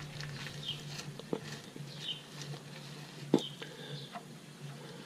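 Scattered sharp clicks and light taps of a wrench being worked on the oil drain bolt, the loudest about three seconds in, over a low steady hum. A small bird chirps briefly about every second and a half.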